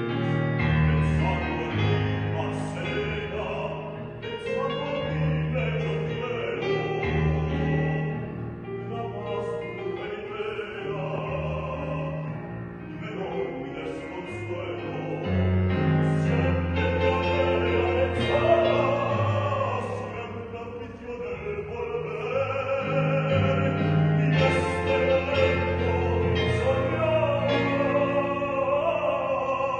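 A male voice singing a zarzuela romanza in operatic style, with wide vibrato on held notes. An electronic keyboard accompanies with sustained low chords.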